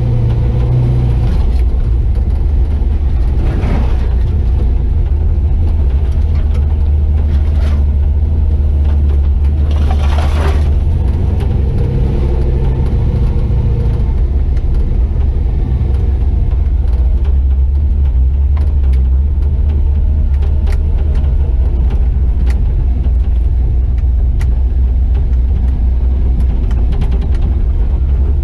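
The Chevy 4x4 pickup's swapped 6.0-litre V8 running steadily as the truck drives, with a deep, constant drone. Two brief rushes of noise come about four and ten seconds in, and small scattered clicks and rattles follow later.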